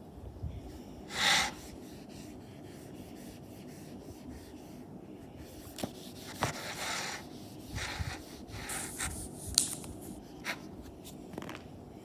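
A hand rubbing and scraping across a whiteboard, with scattered light taps and knocks. A short, louder rushing sound comes about a second in.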